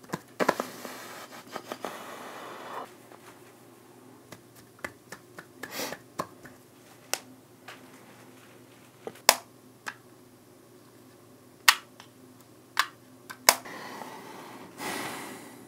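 About a dozen single sharp clicks and taps at uneven intervals over quiet room tone, with a breathy rush of noise near the start and another, like a heavy exhale, near the end.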